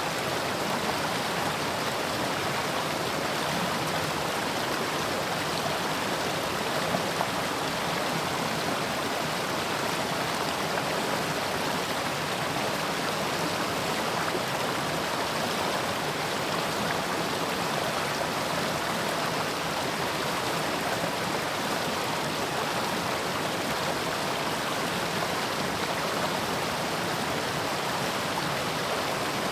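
Mountain stream rushing steadily over rocks, a continuous even splashing with no break.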